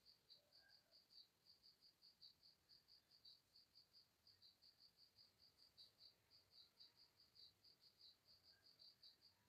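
Near silence, with a faint, steady chirping insect: a high chirp repeating about five times a second.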